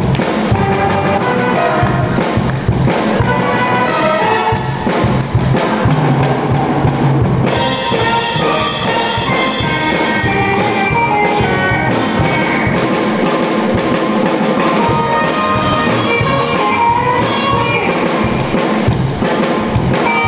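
Upbeat rock-and-roll show music with a drum kit keeping a steady beat and brass playing, loud throughout. The sound turns brighter and fuller about seven and a half seconds in.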